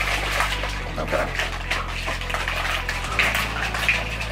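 Water and ice sloshing and rattling inside a plastic shaker cup shaken by hand, mixing energy-drink powder into the water.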